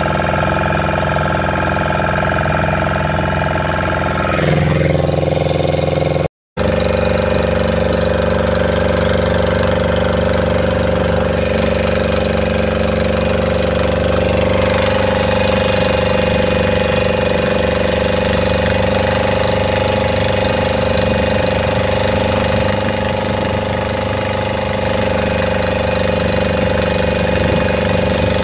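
A small boat's engine running steadily while the boat moves through the water. Its note drops about four seconds in, the sound cuts out for an instant just after six seconds, and it then runs on at an even pitch.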